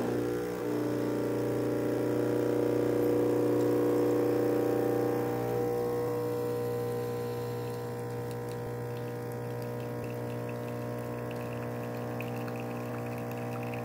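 De'Longhi espresso machine's pump running with a steady hum while espresso runs into the cup. It is loudest for the first five seconds or so, then settles a little quieter.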